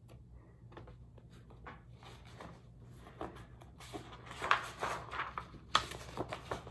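Paper pages of a picture book being flipped and handled, a run of quick rustles and soft flaps that picks up about three seconds in and is loudest near the end.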